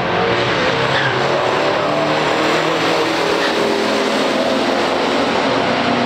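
Two big-block V8 muscle cars, a 1967 Chevrolet Impala SS 427 and a 1968 Plymouth GTX 440, running at full throttle side by side down a drag strip. The engine noise is loud and continuous throughout.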